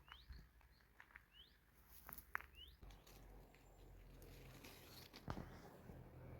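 Faint bird chirping: about four short rising chirps in the first three seconds, over a few soft clicks.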